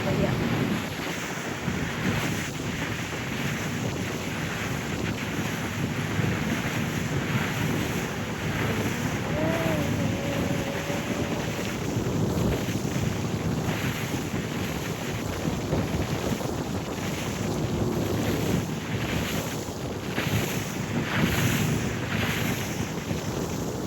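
Wind buffeting the microphone over the steady rush of water from a boat under way.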